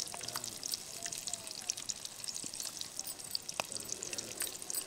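Hot oil in a steel kadai sizzling and crackling around prawn pakodas as they deep-fry, while fried pieces are lifted out on a slotted spoon with oil dripping back into the pan. A single sharp metal clink about three and a half seconds in, as the spoon meets a steel plate.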